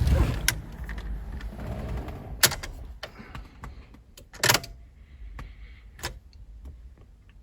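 Four sharp clicks about two seconds apart as the ignition key is turned to start, with no engine cranking: the immobiliser is blocking the start of the Nissan Primera.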